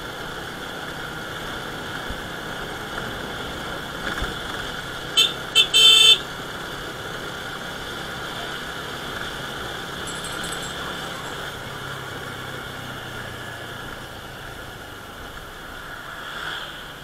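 Motor scooter running steadily down a street with road and wind noise, and a horn giving three quick beeps about five to six seconds in, the third a little longer.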